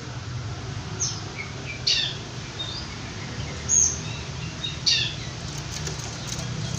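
Long-tailed shrike (cendet) giving short, sharp calls that sweep downward: four loud ones about a second apart, with a few softer chirps between them, over a steady low hum.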